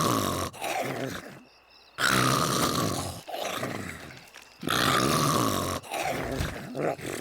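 Exaggerated, voice-acted cartoon snoring from a sleeping duck character: a loud snore, then a quieter breath out, repeating about every two and a half seconds.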